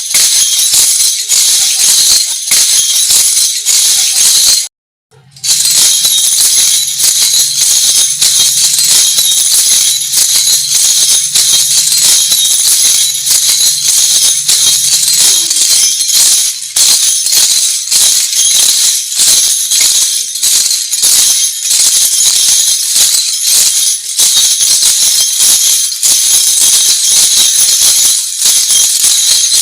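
Lezim, a wooden-framed folk instrument with small metal cymbal jingles, played in rapid rhythmic strokes that give a loud, bright jangling; the sound cuts out for about half a second around five seconds in, then carries on.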